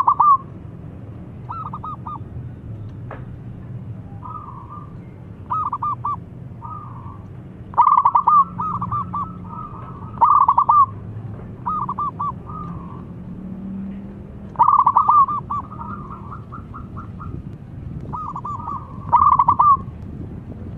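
Zebra dove (perkutut) cooing repeatedly, each phrase a quick run of short staccato coos. Some phrases are much louder than others, over a steady low hum.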